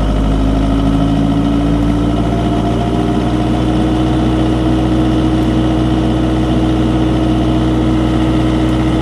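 Generator set engine running steadily after a manual start; its speed rises slightly over the first three seconds, then holds even.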